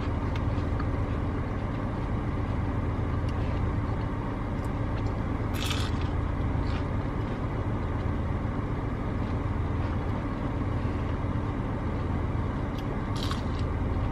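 Steady hum of a car idling, heard from inside the cabin, with a couple of brief sharper noises about halfway through and near the end.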